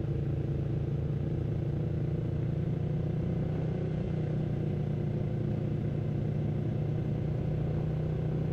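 Sport motorcycle engine running steadily at low revs while riding slowly in second gear: an even, low engine drone with no revving.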